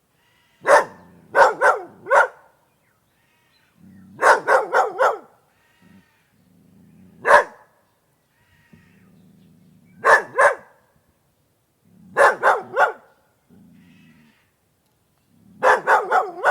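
A dog barking in short bursts of one to four sharp barks, with pauses of a second or two between the bursts.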